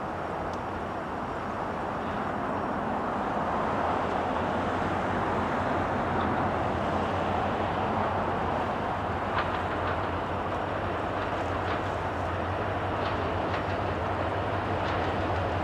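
Diesel freight locomotives led by an EMD SD70M-2 approaching at track speed. A steady low engine drone runs under rumbling noise and grows gradually louder, with a few sharp clicks in the second half.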